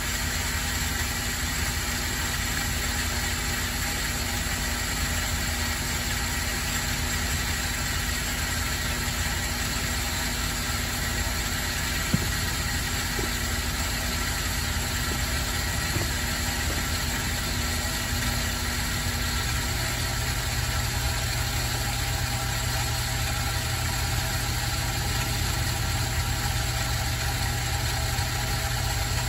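Electric pump motor of a hydropneumatic pressure-tank water system running, a steady hum, as it slowly builds pressure in the tank. The hum's tone drops lower about two-thirds of the way through.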